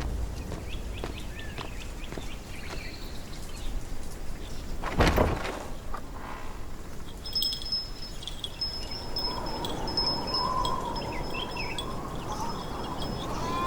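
Quiet soundtrack ambience with one sharp swish about five seconds in, then high chime-like tones repeating in short runs from about seven seconds on.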